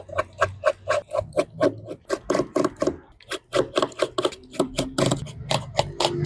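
A rapid run of small sharp plastic clicks and taps, about five a second with a brief pause midway, as a Samsung A02S phone's plastic cover is worked off.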